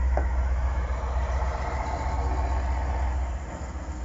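Heavy truck engine rumbling as a dump truck drives past, over a steady low drone that drops away about three seconds in, with a single click near the start.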